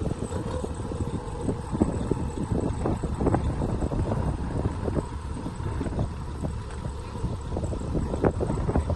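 Heavy farm machinery running, a steady low rumble with irregular knocks and clatters, and wind buffeting the microphone.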